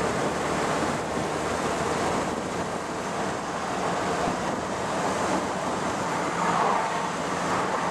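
Wind and road noise from a 1978 Triumph Spitfire 1500 driving at road speed, with its four-cylinder engine running steadily underneath.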